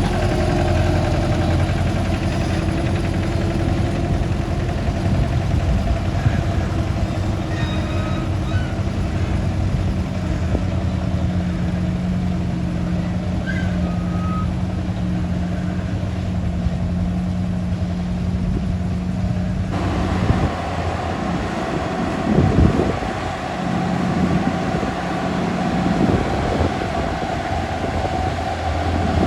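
Heavy truck's diesel engine running steadily with a low hum. About two-thirds of the way through, the sound changes abruptly to a rougher engine note with a few louder surges.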